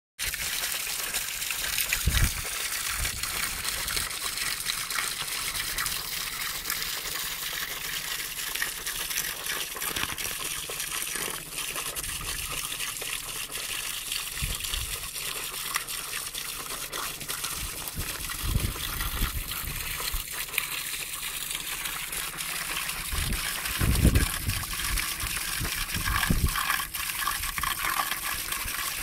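Spring water pouring from a pipe in a stone wall and splashing onto wet rocks: a steady splashing rush, with a few brief low thumps.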